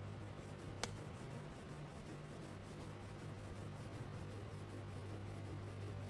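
Crayon rubbing on paper, faint, over a steady low hum, with one sharp click a little under a second in.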